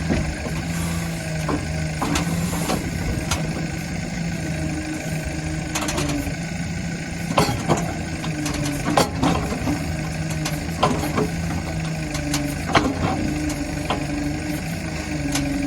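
Tata Hitachi Shinrai backhoe loader's diesel engine running at a steady idle. Sharp, irregular knocks or clanks sound over it, the loudest ones about 7, 9, 11 and 13 seconds in.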